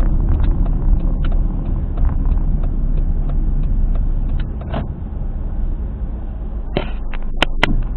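Car on the move, heard through a dashcam: steady low road and tyre rumble with scattered clicks and a few sharper ticks near the end. It carries a noise from around the rear tyre that seems to come from a failing wheel hub bearing.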